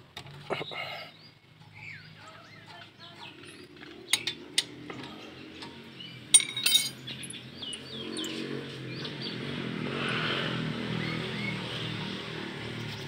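Metal hand tools clinking against a Toyota Vios NCP93's front brake caliper as it is unbolted, with a few sharp clinks about four seconds in and again about six and a half seconds in. Birds chirp throughout, and a low rumble swells and fades in the second half.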